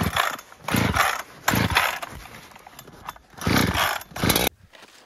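Recoil starter of a Husqvarna 372 clone chainsaw being yanked hard several times, a run of loud rasping pulls with the engine turning over, in a cold start at minus 22 °C. The sound cuts off suddenly near the end.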